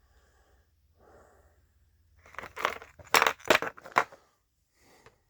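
Handling noise from a small plastic model being picked up and turned in the hands. A quick run of sharp clicks and rattles starts about two seconds in and lasts about two seconds.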